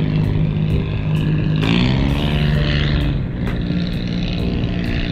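Steady engine drone with a deep, pitched hum that shifts in pitch briefly about two seconds in.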